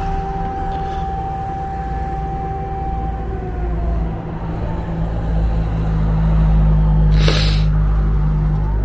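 Civil-defence air-raid siren wailing over the city: it holds a steady pitch, falls away about three seconds in, and rises again near the end. A low steady drone runs beneath, and a short hissing burst comes about seven seconds in.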